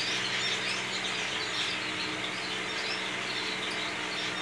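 Many small caged birds chirping continuously in the background of an aviary, over a steady low hum.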